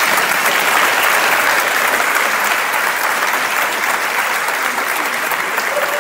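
Audience applauding steadily, easing off slightly over the second half.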